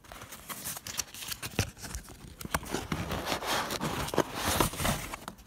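Cardboard box and paper inserts being handled as the box is opened: rustling and crinkling with many scattered taps and knocks, busiest near the end.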